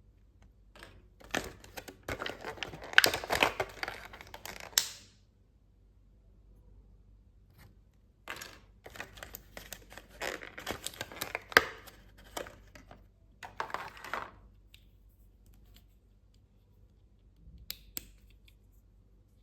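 Toy packaging being torn open and crinkled by hand, in two long stretches of dense crackling, then a few light clicks near the end.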